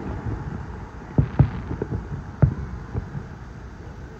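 Aerial firework shells bursting some way off: a pair of deep booms just over a second in, another about halfway, and a weaker one near three seconds.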